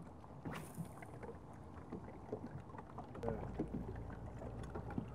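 Faint ambience on a bass boat: water lapping at the hull, with scattered small ticks and knocks. A low steady rumble comes in about three seconds in.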